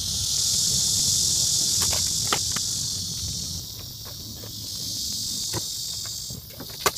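Insect chorus, a dense high buzz that eases off in the middle and swells again, with a few sharp clicks and knocks from the rooftop tent and its ladder being handled.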